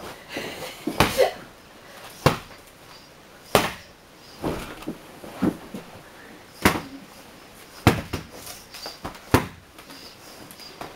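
A series of sharp knocks, about six of them spaced a second or so apart, with quieter scuffing between.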